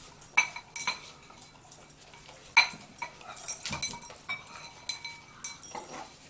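A dog eating from a food bowl: a handful of sharp, irregular clinks as the bowl is nosed and knocked, each ringing briefly.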